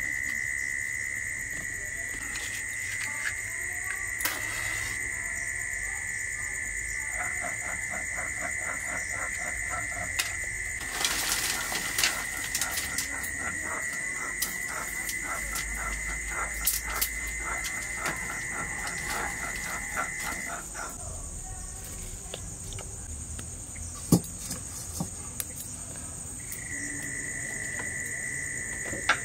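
Insects trilling steadily in a high, continuous tone, which cuts out for several seconds about two-thirds of the way through and then resumes. Over it come scattered sharp clicks and rustling from hands handling fuel and sticks at a clay stove.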